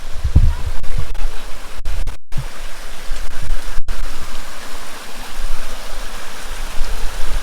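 Creek water rushing steadily in a bush gully, with low rumbles of wind on the microphone in the first second or so. The sound cuts out very briefly twice, about two and four seconds in.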